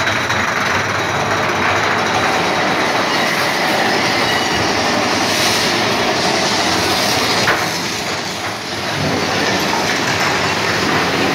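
Mine-train roller coaster running along its track through a rock tunnel: a loud, steady rattle and rumble of the cars and wheels, easing briefly about eight seconds in.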